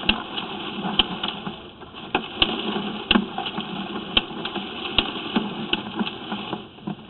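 A steady mechanical hum with irregular sharp clicks and knocks, about one a second, from sewer inspection and drain-cleaning equipment at work.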